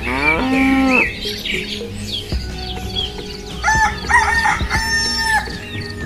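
Farm-animal sound effects over background music: a cow mooing for about a second at the start, then a rooster crowing in three parts about halfway through.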